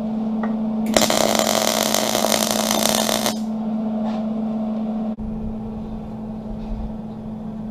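MIG welding arc running in one short stitch-weld burst of about two and a half seconds, starting about a second in, as a steel door-stop strip is tacked on. A steady low hum runs underneath.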